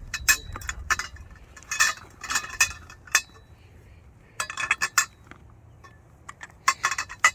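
Powder-coated steel frame tubes of a portable pickleball net clinking and clattering against each other as they are handled, in several short clusters of sharp metallic knocks.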